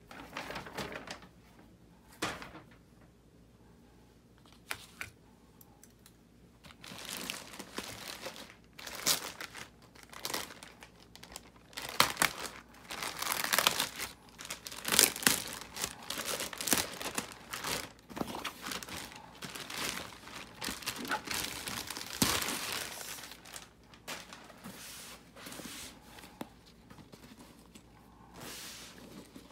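Clear plastic bag crinkling as it is pulled off a fabric cooler tote, in irregular bursts that are busiest midway and ease into softer handling near the end.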